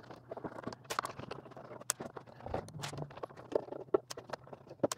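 Small screws being backed out of the lid of the antenna's matching box with a small screwdriver and set down on a wooden table: an irregular scatter of light clicks and taps.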